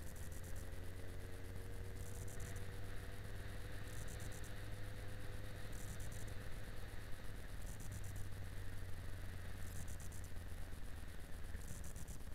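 Yamaha XJ6 Diversion's 600 cc inline-four engine running under way at a steady road speed, its note rising a little and then holding, over a low rumble. A faint high hiss pulses on and off about every two seconds.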